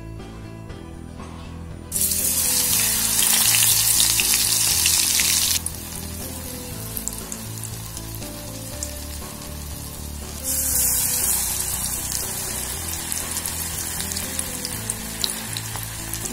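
Banana flower and dal vada patties deep-frying in hot coconut oil in a wok. A loud sizzle starts suddenly about two seconds in as a patty goes into the oil, drops after a few seconds to steady bubbling with crackles, then surges again about ten seconds in and slowly eases. Soft background music plays underneath.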